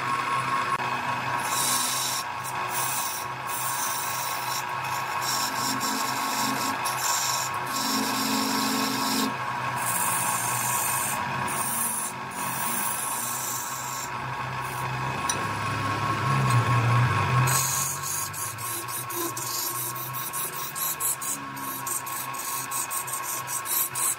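Electric wood lathe running with a steady motor hum while a turning tool cuts the spinning wood, a scraping cutting noise that comes and goes in stretches with short breaks between cuts.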